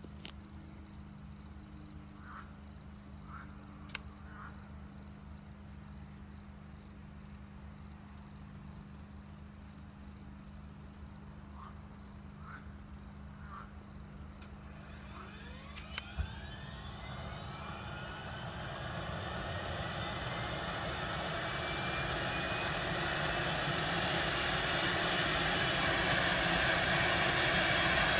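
Airbus H145 rescue helicopter starting its twin turboshaft engines. For about fifteen seconds there is only a low hum under a steady cricket chirr. Then rising turbine whines begin, and the sound grows steadily louder as the engines spool up and the rotor starts to turn.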